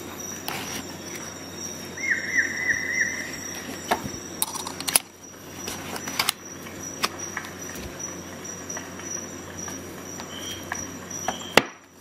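Handling of a nylon multi-tool sheath: fabric rustling and several sharp clicks, the last and loudest near the end. About two seconds in, a quick run of about five chirps falling in pitch, and a faint steady high tone underneath.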